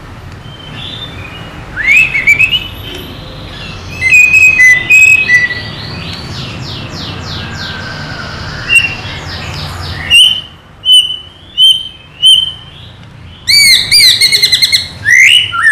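White-rumped shama singing a loud, varied, fired-up song. It mixes whistled phrases and fast runs of repeated notes, gives a few sharp separate calls about ten to twelve seconds in, and ends in a rapid burst of notes. This is the agitated shama song that keepers play to provoke their own birds into singing.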